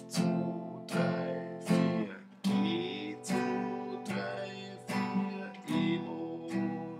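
Steel-string acoustic guitar strummed in a simple, even rhythm, one strum on each beat at a little over one a second, each chord ringing out between strums. The chord changes every four strums, about 2.5 s and 5.7 s in, through the A minor, F, G, E minor progression.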